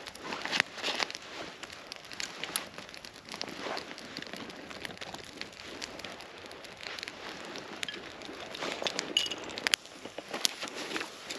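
Small, freshly lit twig-and-stick kindling fire crackling, with many short, irregular pops.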